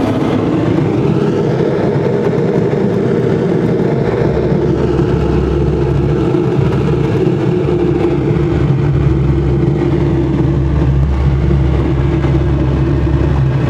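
Steady rush of airflow around a glider's cockpit canopy in flight, with a low, even rumble that does not change.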